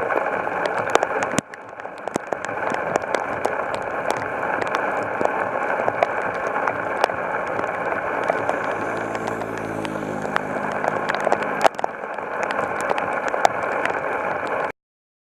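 Heavy rain pouring down, a dense steady rush with many sharp ticks of drops striking hard surfaces. Around the middle a low droning hum rises and fades over a few seconds. The sound cuts off suddenly near the end.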